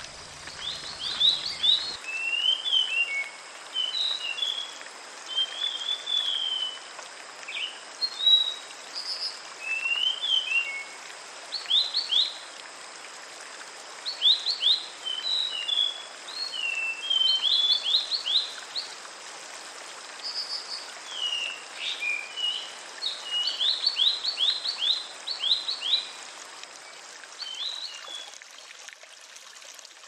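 Songbirds singing in short, varied phrases of chirps and quick runs of sharp downward notes, over the steady rush of a small waterfall. The birdsong stops near the end.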